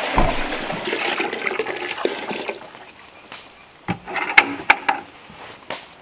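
Water poured from a 5-gallon plastic pail into a small metal pail, a steady splashing pour that stops about two and a half seconds in. About four seconds in comes a thump, then a few sharp, splashy clicks as a dog laps from the metal pail.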